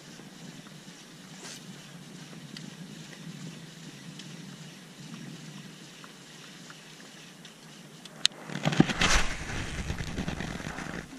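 Steady wind and water noise on the microphone from a small boat on open water. About eight seconds in there is a sharp click, then a loud second or so of rustling and knocking as the angler handles his baitcasting rod and reel.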